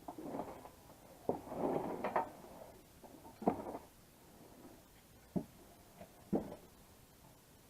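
Scattered knocks and clatter of tools and metal parts being handled, with a short scraping rustle in the first couple of seconds and single sharp knocks spread through the rest.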